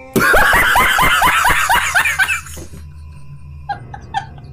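A man laughing loudly in quick, falling bursts for about two and a half seconds. After a short lull, quieter and higher-pitched giggles follow in short, evenly spaced pulses, over a low steady hum.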